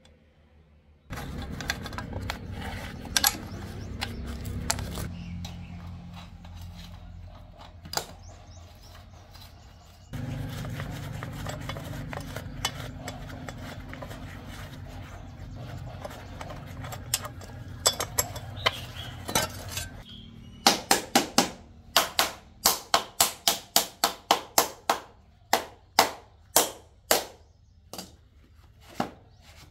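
Steel concrete-casting molds being handled and scraped, with occasional knocks, then a quick run of sharp taps on the mold, about two a second, over the last third.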